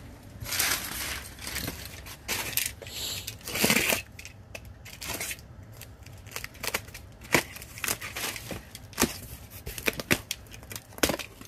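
Handling of a cardboard shipping box and its plastic wrap, with swishing rustles in the first few seconds. Then a utility knife slits the box's packing tape, with many short sharp clicks and scrapes.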